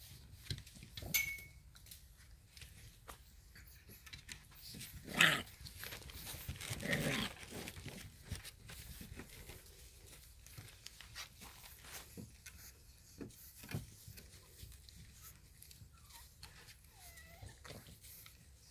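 Shar-Pei puppies: one gives a short bark about five seconds in and a longer call around seven seconds, with scattered light knocks and scrabbling of paws on the wooden box.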